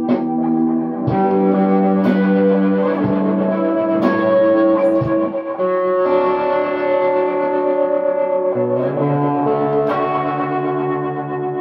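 Squier Telecaster electric guitar played slowly through Old Blood Noise Endeavors Dark Star and Procession reverb pedals and a delay, its notes ringing on and blending into a sustained ambient wash. New notes are picked about once a second at first, then longer chords are held, with a change about eight and a half seconds in.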